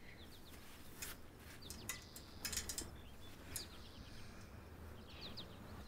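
Quiet outdoor ambience with faint bird chirps, three or four short calls spread through it, and a few brief rustles.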